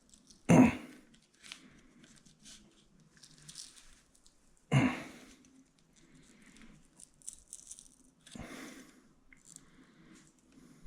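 Hands prying at a plastic reflector stuck on with adhesive: scattered faint scrapes and clicks, with two sharp knocks, about half a second in and near five seconds, and a smaller one later as it resists coming off.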